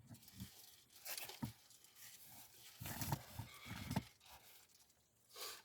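Crinkling and tearing of a bag of barbecue kettle chips being handled and opened, in irregular rustles that are loudest about three to four seconds in.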